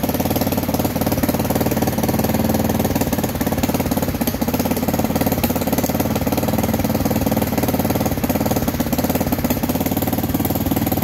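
Bashan ATV engine idling steadily, with no change in speed.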